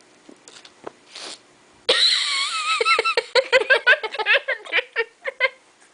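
A short breath, then about two seconds in a girl breaks into high-pitched laughter in quick, wavering bursts that fade out near the end.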